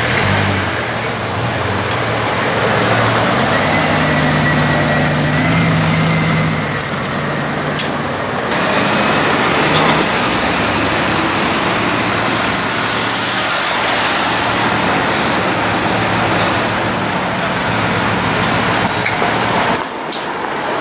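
City street traffic: cars driving past at low speed, engines running and tyres on the road. A low, steady engine note stands out over the first eight seconds or so.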